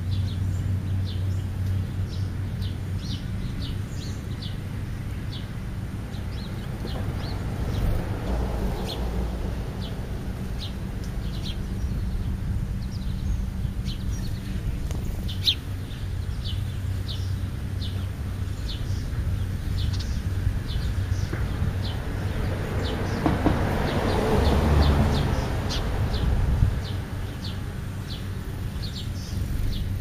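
Small birds giving short chirps over and over, about one or two a second, over a steady low rumble of traffic that swells louder about three-quarters of the way through.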